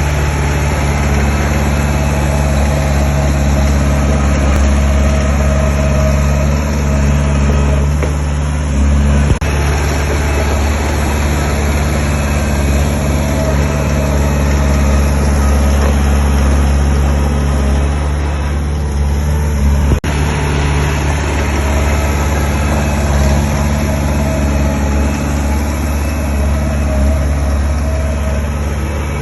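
Diesel engine of heavy earthmoving machinery running steadily at an even pitch, with a deep, constant hum.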